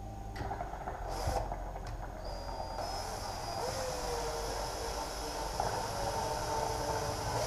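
Electric drill running under load, turning a threaded rod through a tight, oiled bore, with a wavering whine that grows stronger about three seconds in.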